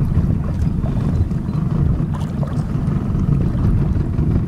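Motorboat running steadily on open water, a dense low rumble with wind buffeting the microphone.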